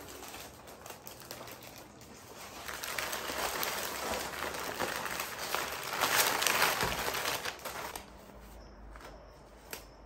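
Plastic flower sleeves and bags crinkling as wrapped flower bunches are handled and set down on a table. The rustling builds a couple of seconds in, is loudest around six seconds in, and dies down near the end.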